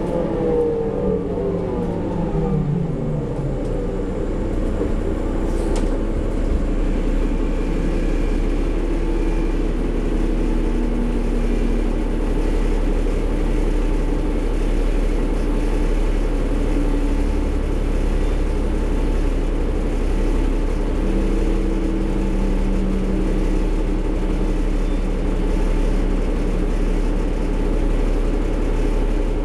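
Cummins ISL inline-six diesel engine of a New Flyer D40LF transit bus, heard from inside the cabin while the bus drives. The engine note falls in pitch over the first few seconds, then holds a steady drone over road noise.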